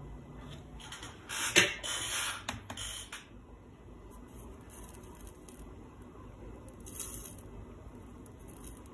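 Soldering-bench handling noises as a stripped wire is soldered to a Wemos D1 Mini pin with a soldering iron: clicks and a burst of scraping hiss between about one and three seconds in, then a quieter stretch with a brief faint hiss about seven seconds in.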